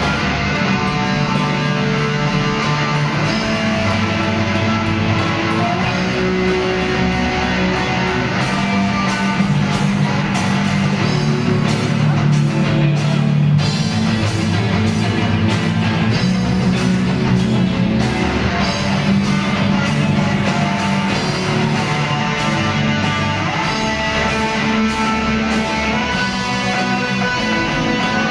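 Student rock band playing live: electric guitars, bass guitar, keyboard and drum kit, with a steady beat.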